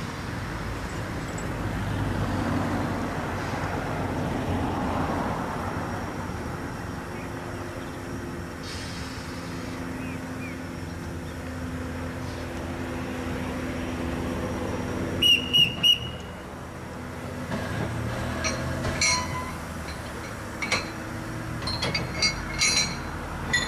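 Steam locomotive slowly shunting narrow-gauge goods wagons, with a steady rolling rumble. About two-thirds of the way in come three short, high whistle toots, then a run of sharp metal clanks near the end as the wagons buffer up and are coupled.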